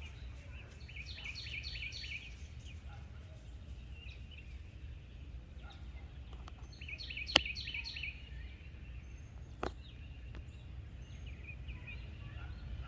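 Birds calling in two short runs of quick, high chirping notes over a steady low rumble of outdoor background noise. A single sharp click a little past the middle is the loudest sound, and a softer knock follows about two seconds later.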